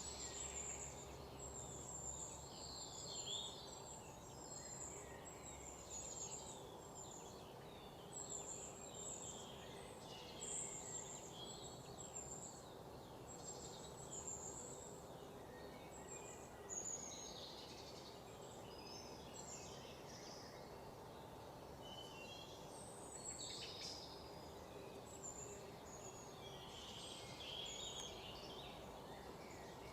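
Faint birdsong: many small birds chirping in short, high, sweeping notes, scattered throughout, over a steady low hiss.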